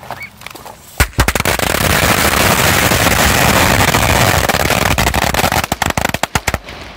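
Black Cat Firecracker Bomb, a packed ball of firecrackers, going off: a sharp first bang about a second in, then a dense, unbroken rattle of cracks for about four seconds, thinning into scattered single bangs that stop shortly before the end.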